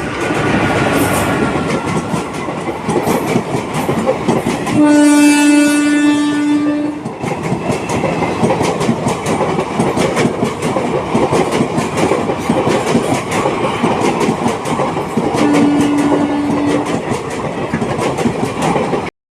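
Indian Railways WAP-4 electric locomotive's horn sounding two steady single-pitch blasts, one of about two seconds some five seconds in and a shorter one some fifteen seconds in. Beneath them is the continuous running noise of the train, with its wheels clicking over the rail joints.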